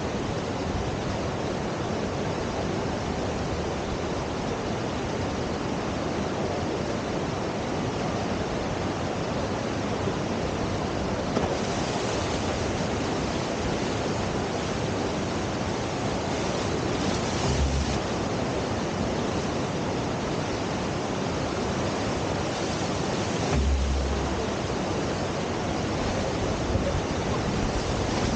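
Steady rush of whitewater pouring over the Deschutes River's standing surf wave, an even roar without pause. Two brief low thumps break in past the middle.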